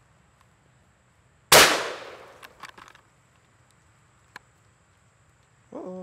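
A single .410 shotgun shot from the lower barrel of a Savage Model 42 rifle/shotgun combo, about a second and a half in, echoing and fading over about a second and a half. A few faint ticks follow, then one sharp click about four seconds in.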